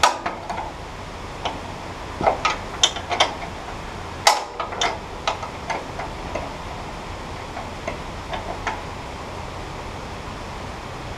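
An 11/16-inch combination wrench clicking and tapping against a nut and the steel sawmill frame as it is worked around in short turns where there is little room to swing. The clicks come irregularly, the loudest about four seconds in, over a steady background hiss.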